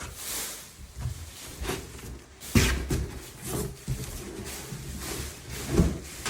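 Rustling packaging and several knocks and thumps as parts of a large prop are handled and lifted out of its box, the loudest thump about two and a half seconds in and another near the end.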